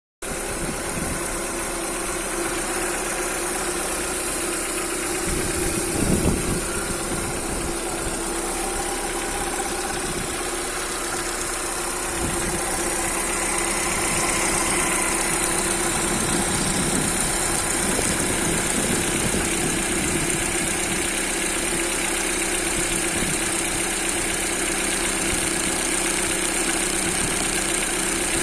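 Lada Priora's four-cylinder petrol engine idling steadily, with one brief louder swell about six seconds in. The owner reports an extraneous noise from this engine that shows while it is cold and is heard once the throttle is opened.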